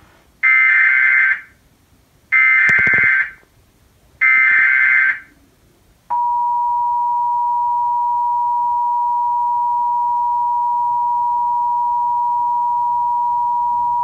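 Emergency Alert System tornado warning coming through a TV speaker: three short SAME digital header bursts about two seconds apart, which carry the coded alert data, then the steady two-tone EAS attention signal from about six seconds in.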